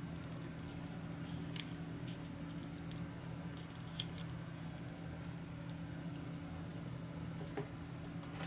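Paper being handled: fingers press and smooth a card panel down onto a card base, with a few light ticks, over a steady low hum.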